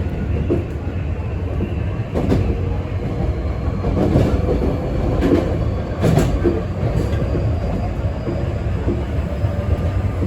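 Hankyu Kyoto Line electric train running, heard from inside the car: a steady low rumble with irregular wheel clacks over rail joints.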